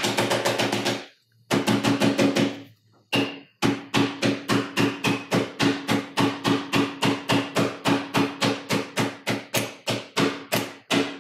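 A knife tip striking the glass back of an iPhone XS Max again and again, about four sharp hits a second with a short ringing tone on each. The strikes pause briefly about a second in and near three seconds, then run on steadily. They scratch the glass but do not crack it.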